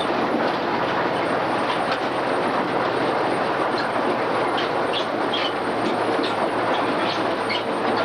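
Case IH 885XL tractor and Grimme RowOver potato harvester at work: a steady, dense running noise with irregular clattering and rattling over it.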